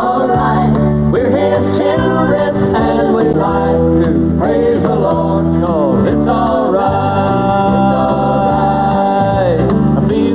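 Southern gospel group of men and women singing in harmony, backed by a live band with electric guitar and bass. In the second half the voices hold one long chord for a few seconds.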